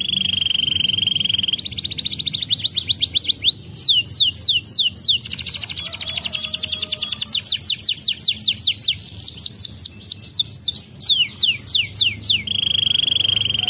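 Domestic canary singing a long continuous song of varied tours: an even rolling trill, fast repeated notes, and series of downward-sweeping whistles, returning to the rolling trill near the end.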